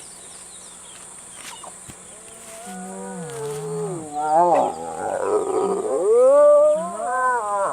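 Hyena calling: a run of pitched, drawn-out calls that glide up and down in pitch, faint at first and growing louder over the last few seconds.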